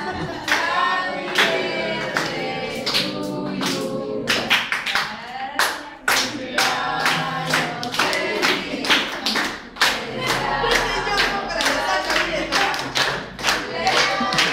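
A group of people singing a birthday song together, clapping along in time at about two claps a second.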